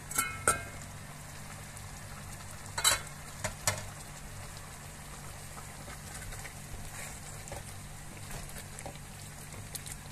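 Metal clanks from an aluminium pot lid and ladle, two ringing ones near the start and three more about three seconds in, then a metal ladle stirring thick lentil soup with soft scrapes and ticks against the pot, over a steady low hum.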